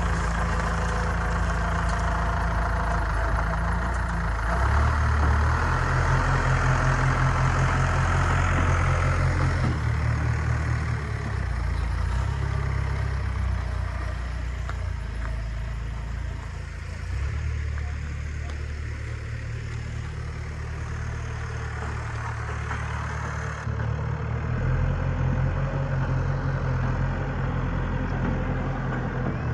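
Backhoe loader's diesel engine running, its speed stepping up and down several times as it works.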